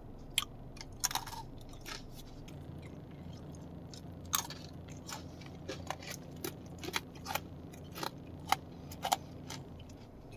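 Close-up chewing of a crisp biscuit stick dipped in chocolate cream: scattered short crunches and mouth clicks, several a second at times, over a steady low hum.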